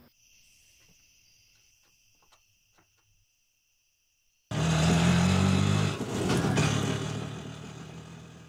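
Faint chirping of crickets, then a brief silence. A vehicle engine cuts in loudly about halfway through, running with a steady low hum, and fades away near the end.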